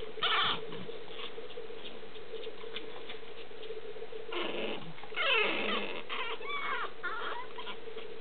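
Boston terrier puppies squeaking and whimpering: a short call near the start, then a run of high, sliding calls from about four to seven seconds in, over a steady hum.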